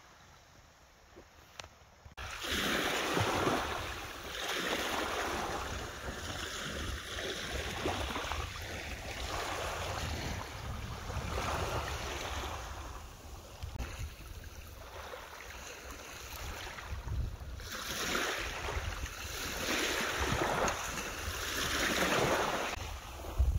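Small waves lapping and washing in over a pebble and shingle beach, starting about two seconds in, each wash swelling and ebbing every few seconds. A low wind rumble on the microphone runs underneath.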